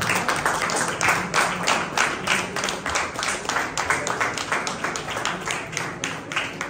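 A small audience applauding, many hands clapping quickly and unevenly, dying away near the end.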